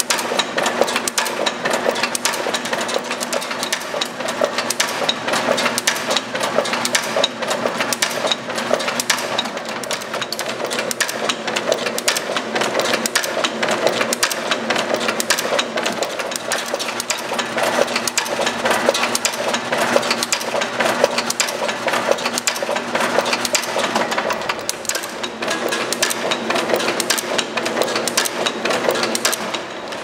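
Artos CS-6-E wire cutting and stripping machine running, its mechanism making a fast, steady clatter of clicks over a low motor hum.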